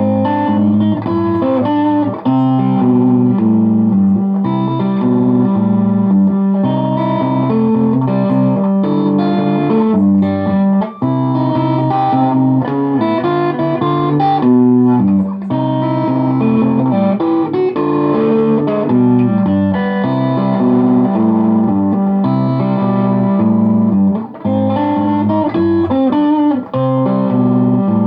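Chibson SG solid-body electric guitar playing a ragtime tune, a steady bass line under a plucked melody, with a few brief breaks.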